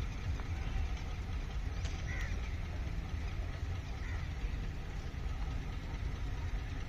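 Steady, uneven low outdoor rumble, with a few short bird calls about two seconds in and again about four seconds in.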